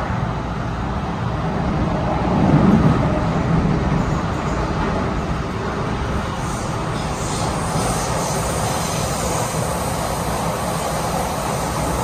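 Interior running noise of an MTR M-Train (Metro-Cammell electric multiple unit) travelling through a tunnel: a steady rumble and hiss of wheels on rail, swelling louder about two to three seconds in.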